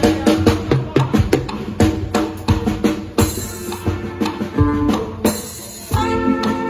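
Band music with a drum kit playing a steady beat of about four strokes a second. Cymbal crashes wash over it past the middle, and held chords come in near the end.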